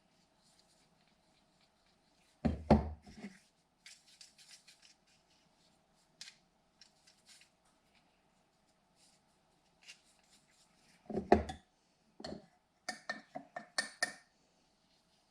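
Plastic drain pipe and fittings being handled and pushed together dry: two heavy clunks, light scraping and rubbing between them, and a quick run of sharp knocks near the end.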